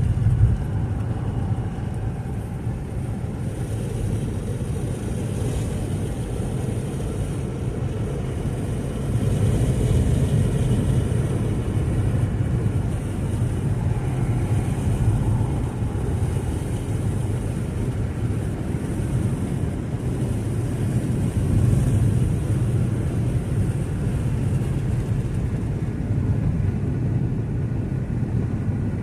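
Car on the move, heard from inside the cabin: a steady low rumble of tyre and engine noise, a little louder from about nine seconds in.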